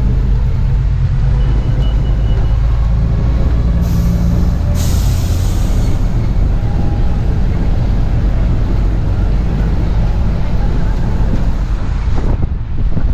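Open-air trolley bus driving through city streets: the steady low rumble of its engine and road noise, with a short hiss about five seconds in.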